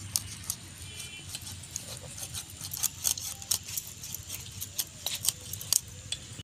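Irregular crisp clicks and taps as raw fish is pressed and cut against the upright blade of a bonti, with glass and metal bangles clinking on the cutter's wrists.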